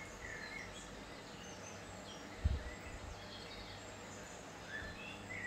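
Quiet room tone with a steady low hum, a few faint bird chirps, and a single low thump about two and a half seconds in.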